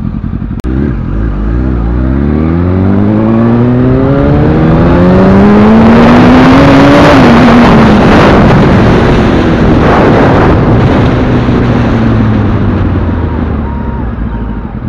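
Yamaha R1 inline-four engine pulling hard from a standstill, its note climbing steadily for several seconds before easing off, with wind rushing over the microphone at speed.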